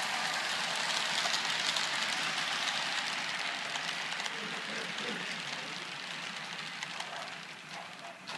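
HO-scale model train running along the layout's track: a steady rolling hiss and rattle with faint clicks that swells about a second in and slowly fades away.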